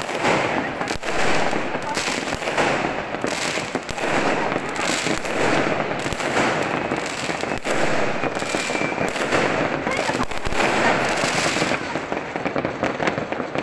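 Fireworks and firecrackers going off across a city in a dense, unbroken barrage of bangs and crackling, many overlapping near and far.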